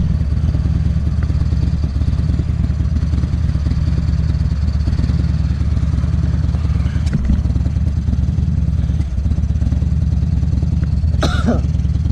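2009 Buell XB12Ss's air-cooled V-twin idling steadily through a Jardine full aftermarket exhaust, the engine still cold.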